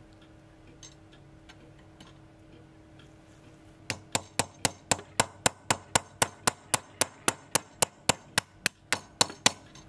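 Brass pinion being tapped back onto the centre arbor of a 1953 Smiths clock movement. About two dozen quick, sharp metallic taps at roughly four a second start about four seconds in, each with a bright ring.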